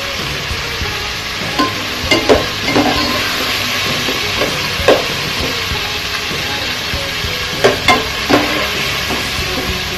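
Tomatoes, onion and garlic sizzling in hot oil in a pot while a metal spoon stirs them, with several sharp knocks and scrapes of the spoon against the pot.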